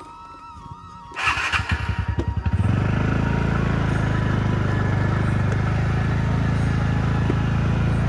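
A TVS Ntorq 125 scooter's single-cylinder engine starts about a second in, catches with a second or so of uneven pulsing, then runs steadily as the scooter rides off.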